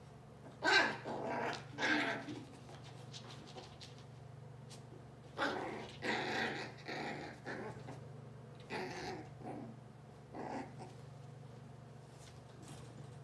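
Australian terrier growling in short, rough bouts, several times: about a second in, again from about five and a half to seven and a half seconds, and briefly near nine and ten and a half seconds.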